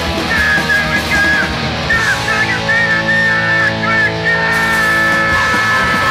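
Punk rock music with distorted electric guitars: bending high guitar notes, then from about two seconds in a chord left ringing with a long held high note over it.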